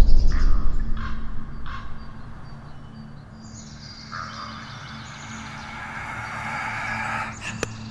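Forest ambience with small birds chirping. A deep low rumble fades out over the first second and a half, a soft hiss swells up from about four seconds in, and a couple of sharp clicks come near the end.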